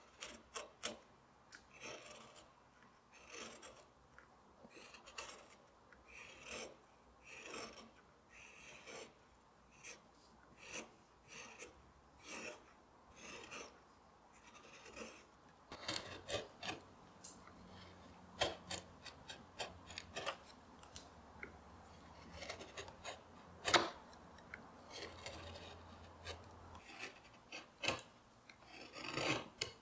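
A hand carving gouge paring walnut, its short scraping cuts coming about once a second and lifting curled shavings off the wood.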